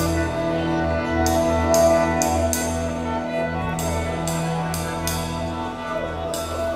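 Instrumental rock trio playing live: sustained, droning notes held over regular cymbal strokes about three a second, which drop out twice for about a second.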